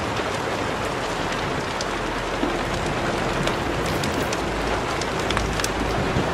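Steady rain noise with scattered drop-like ticks. A faint low, held tone joins in about two and a half seconds in.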